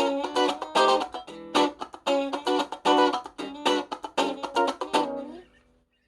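Electric guitar played in a dry clean tone, with no effects: a quick run of picked notes and chords, which stops and rings out about five and a half seconds in.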